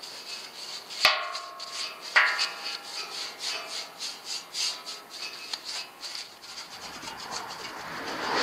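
Steel Land Rover Discovery bumper knocked twice, about a second and two seconds in, each knock ringing briefly, then a run of short scraping and rubbing sounds as it is handled on its trestle. A rush of noise builds near the end.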